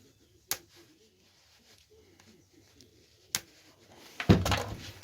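Two sharp single clicks a few seconds apart, then a louder bout of knocking and rattling near the end, as parts of an electric lawnmower's motor are handled and fitted together.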